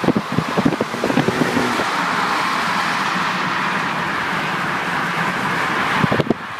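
Highway driving noise through an open car window: a steady rush of wind and tyres, with wind buffeting the microphone in the first second or so and again near the end. An FPV F6 sedan with a turbocharged straight-six runs alongside and pulls ahead.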